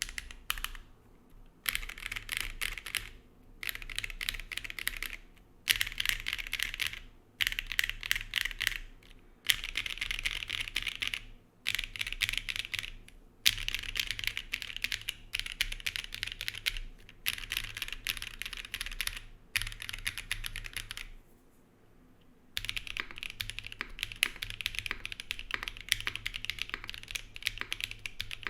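Typing on a Zoom75 SE mechanical keyboard with lubed KTT Strawberry V2 linear switches, GMK keycaps and a carbon fibre plate, gasket-mounted with no foam. Fast runs of keystrokes are broken by short pauses, with a longer pause about three quarters of the way through.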